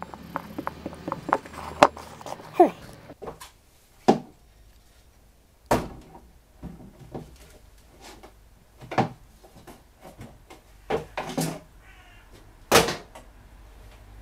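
Metal parts of a milling machine knocked and clanked while it is taken apart by hand: scattered sharp knocks, the loudest two about 6 and 13 seconds in, with a short falling squeak about two and a half seconds in.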